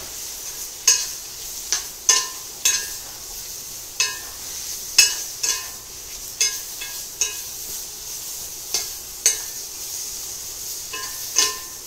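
A metal spoon clinking and scraping against a stainless steel skillet as vegetables are stirred, irregular clinks a little more than once a second, each with a short metallic ring. Under it the vegetables sizzle steadily as they sear in the pan.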